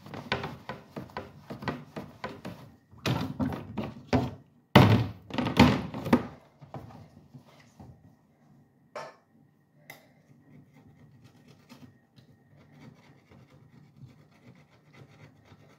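A refrigerator's glass shelf and plastic trim being handled and wiped with a cloth: a busy run of knocks and rubbing, loudest about five seconds in. Then come two sharp clicks and a stretch of faint scraping along the plastic trim.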